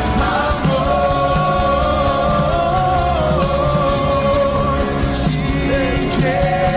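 Music: a song with a voice singing long held notes over full band accompaniment.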